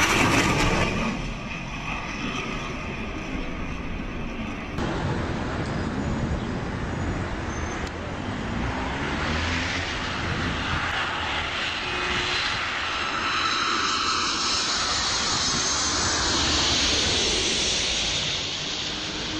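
Jet aircraft flying low past. There is a loud blast at the start as a fighter jet passes over the carrier deck. After a cut, a large jet's engine noise builds steadily as it passes low and is loudest about three-quarters of the way through.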